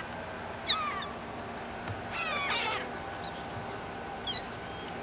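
Birds calling in short, squeaky notes that drop in pitch: a single loud call about a second in, a run of several calls around two seconds in, and a few higher chirps near the end.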